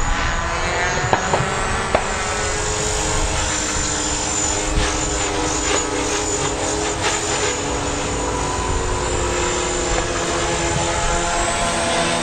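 Art-Tech Shark450 II radio-controlled electric helicopter in flight: the steady whine of its motor and spinning rotor, the pitch sliding up and down as it manoeuvres.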